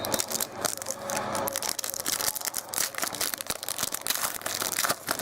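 Trading cards and their packaging being handled: rapid, irregular crinkling, rustling and clicking as cards are slid and shuffled through the hands.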